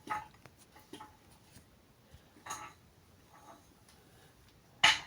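A jack being raised to its full height, making a few scattered light metal clicks and knocks, then one sharp, loud clank near the end.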